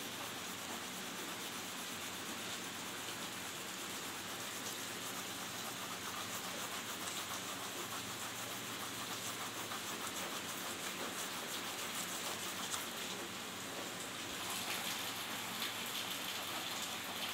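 Pencil lead scratching across paper in rapid back-and-forth shading strokes, laying the sheet down as dark as possible with graphite to make homemade carbon paper.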